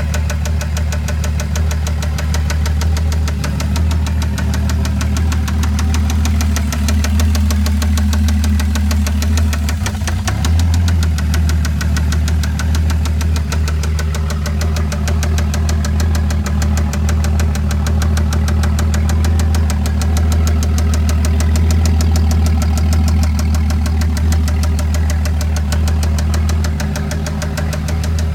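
Toyota 7M-GTE turbocharged straight-six engine running steadily, with a fast, regular ticking over the engine note. The owner does not take it for rod knock, as it is not rattly enough.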